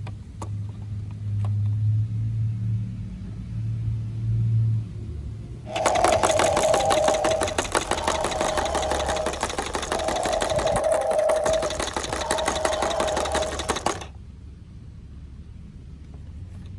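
Battery-powered toy transport truck running: its small electric motor and plastic gears whine and clatter rapidly for about eight seconds, starting about six seconds in and cutting off suddenly. Before it, a low steady hum.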